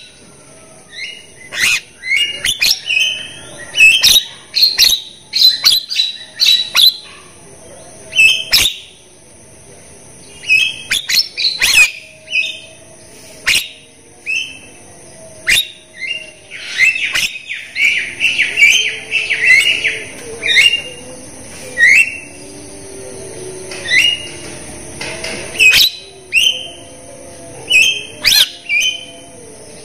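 Javan myna singing: a fast, varied string of sharp clicks, short chirps and rising whistles, with a denser run of chattering notes a little past the middle.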